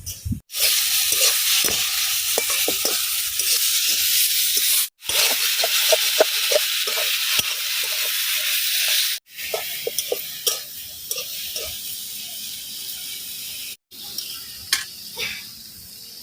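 Food frying with a loud sizzle in hot oil in a pan, stirred with a spatula that scrapes the pan in short strokes. The sound breaks off abruptly a few times, and the sizzle is quieter after about nine seconds.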